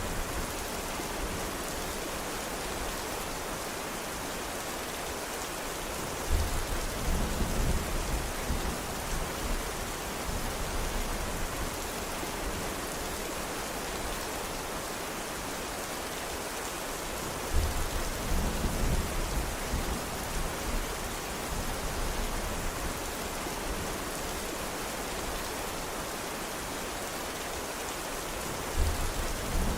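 Steady rain hiss. Three times, about every eleven seconds, a low rumble starts sharply and lasts about two seconds.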